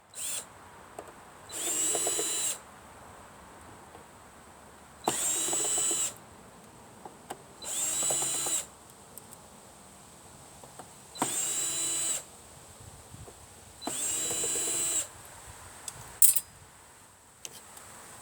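Electric drill-driver running in five short bursts of about a second each, backing screws out of scrap electronics casings, with a few light clicks of parts being handled in between.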